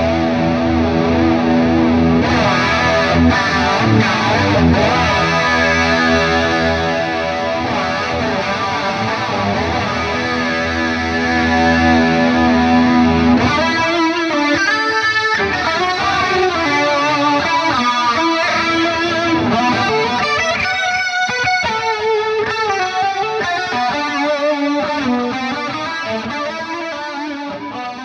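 Overdriven electric guitar played through an amp modeller and effects pedals, with delay and reverb tails. Dense sustained chords and held notes give way about halfway through to a single-note lead line, which fades out at the end.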